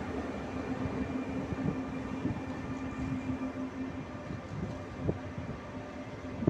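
ÖBB Railjet passenger coaches rolling past along the platform track: a steady rumble with many irregular wheel knocks. A steady hum fades out about four seconds in.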